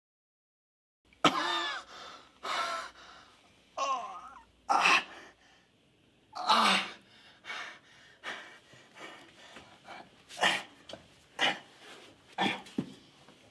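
A man coughing in repeated fits, the first few with a groaning, strained voice and the later ones sharp hacking coughs, with breathing between.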